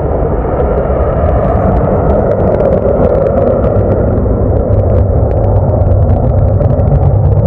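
MiG-31's twin Soloviev D-30F6 afterburning turbofans at full afterburner on takeoff and climb-out: a loud, steady rumble with a crackle running through it.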